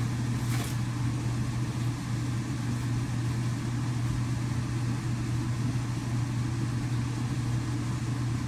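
Steady low hum of background machinery, even and unchanging, with a single brief click about half a second in.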